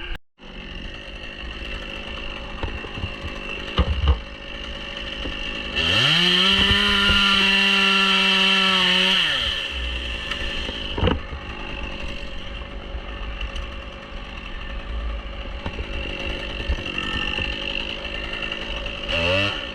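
Chainsaw engine running throughout, revved up to a high, steady pitch for about three and a half seconds about six seconds in, then dropping back; a couple of sharp knocks, and another rev rising near the end.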